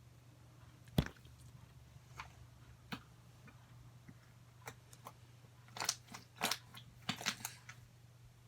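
Slime being squeezed and pressed close to the microphone: scattered clicks and pops, a sharp knock about a second in, and a run of crackling pops near the end.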